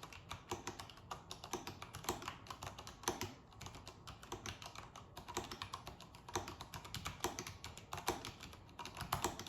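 Continuous typing on an Iqunix A80 mechanical keyboard with Cherry MX Brown switches, which are tactile and not clicky. The keystrokes come at an uneven pace of several a second.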